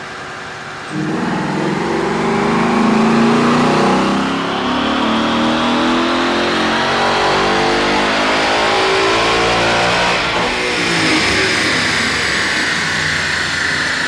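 A Gen 2 Coyote 5.0 L V8 in a 2015 Mustang GT, fitted with a GT350 intake manifold, throttle body and cold air intake, making a wide-open-throttle pull on a chassis dyno. The engine runs steadily at low revs for about a second, then opens up and climbs steadily for about nine seconds. Near the end the throttle is lifted and the revs fall away as it coasts down.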